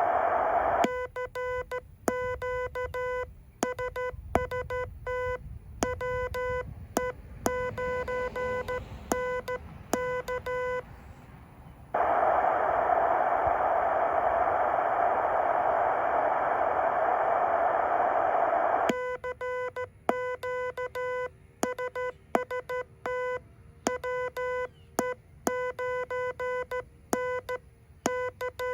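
Heathkit HW-8 transceiver sending Morse code: a buzzy beeping sidetone, pitched around 500 Hz, keys out two runs of code. Between the runs, steady receiver hiss fills in and cuts out again as soon as keying resumes, so the receiver is muted while transmitting.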